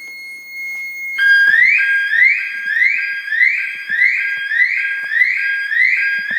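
Toad AI606 car alarm siren going off, triggered by the door being opened with the key while the system is armed. It sounds a steady high tone for about a second, then switches to a loud, repeating rising whoop, a little under two a second.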